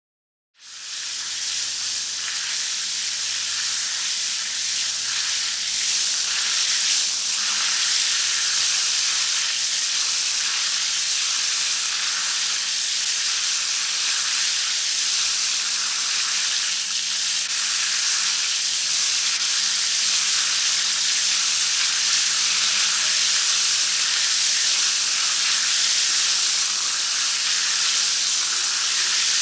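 Shower spray running: a steady, even hiss of water pouring from the showerhead, starting about half a second in.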